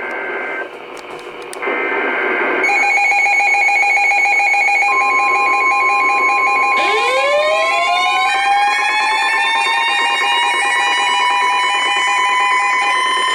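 Emergency alert tones layered together: two short data-burst header tones, then a rapidly alternating electronic alarm and a steady single-pitch warning tone. About seven seconds in, a warning siren joins, winding up in pitch and then holding.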